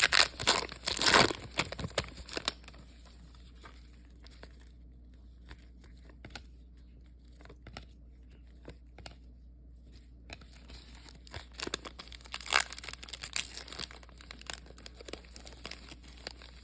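Trading card pack wrapper crinkling and tearing as the pack is opened, in loud bursts over the first couple of seconds and again through the last few seconds, with a quieter stretch of faint handling clicks between.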